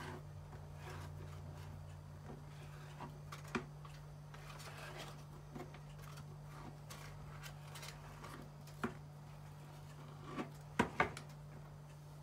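Knife slicing ham on a plastic cutting board, the blade tapping the board at irregular moments, with a few sharper knocks near the end.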